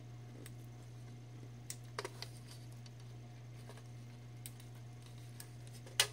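A few short clicks and scrapes of a small screwdriver prying at a laptop's coin-cell clock battery, the loudest near the end, over a steady low hum.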